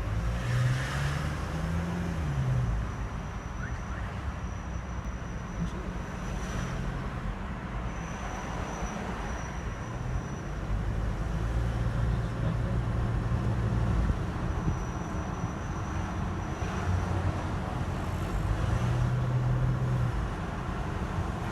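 Car in motion with steady engine and road rumble. A thin, high-pitched squeak comes and goes three times, about two seconds each time.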